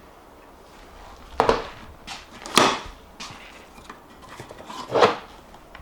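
Three sharp clacks, a second or more apart, from handling a SHAD aluminium motorcycle top box and its fold-out carry handle.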